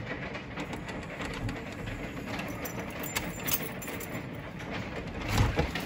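Hail falling: a steady hiss with many scattered sharp clicks of individual hailstones striking, and a louder thump near the end.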